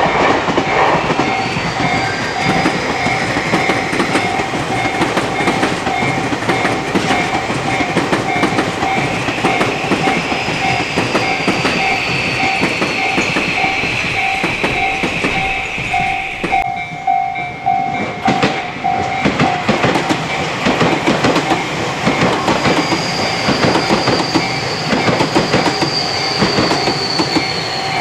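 Japanese railway crossing bell ringing its steady, repeating clang while Tobu Railway electric trains pass over the crossing, their wheels clattering over the rail joints. A high whine falls in pitch several times as the trains go by.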